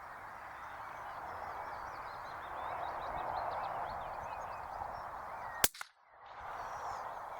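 A single rimfire rifle shot, sharp and brief, about five and a half seconds in. It cuts through a steady outdoor hiss with faint bird chirps.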